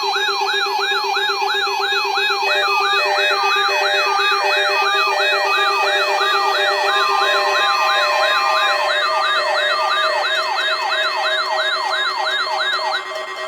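Weather alert radio receivers sounding their alarms for a weekly test of the NOAA Weather Radio warning alarm. A siren-like rising sweep repeats about two and a half times a second and cuts off near the end. Layered with it are a steady lower tone that stops about halfway and an intermittent beeping that starts a couple of seconds in.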